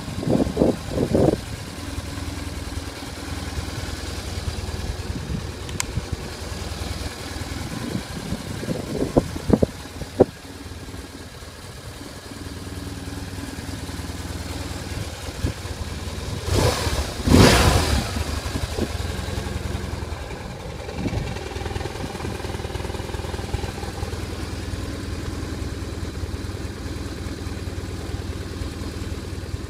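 BMW R1150RT's air/oil-cooled boxer twin idling steadily, with short throttle blips at the start and again about nine seconds in, and the biggest rev about two-thirds of the way through.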